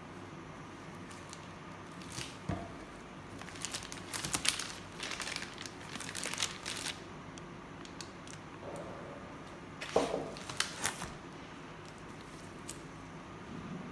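Clear plastic bag wrapping crinkling and rustling as chemical bottles are unwrapped and handled, in two spells of rustling with a few sharp clicks and knocks between them.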